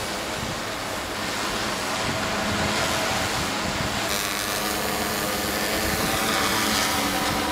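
Six-rotor drone (hexacopter) flying overhead, its motors and propellers giving a steady buzzing whine whose pitch shifts up and down as the rotors change speed during the second half.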